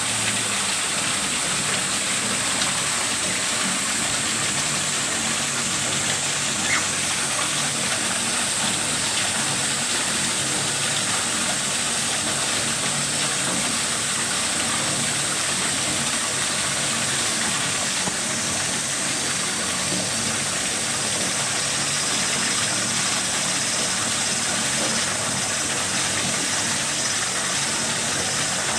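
Steady rush of running water with a low hum beneath, unchanging throughout, with one faint click about seven seconds in.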